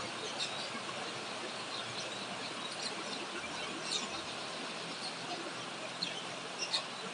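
Heavy rain pouring down on a grapevine: a steady, even hiss, with a few short high chirps scattered through it.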